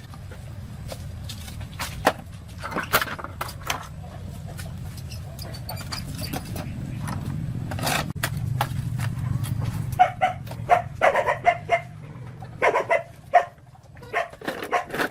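A dog barking several times in quick runs during the last few seconds, over a steady low hum.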